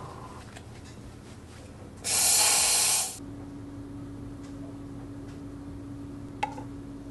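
Dalla Corte espresso machine's steam wand purged: a loud burst of steam hiss about two seconds in, lasting about a second. A steady low hum follows, with a single click near the end.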